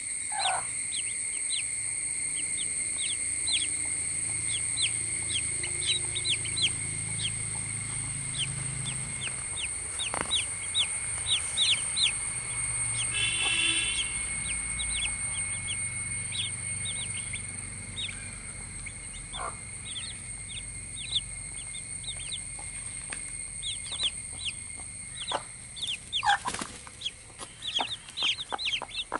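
Baby chicks peeping over and over, each peep a short, quickly falling note, with a steady high-pitched buzz underneath.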